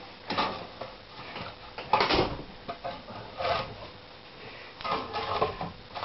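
Knocks and rustling of split firewood being handled and shifted in a wood stove's firebox, with a few separate bumps and one louder knock about two seconds in.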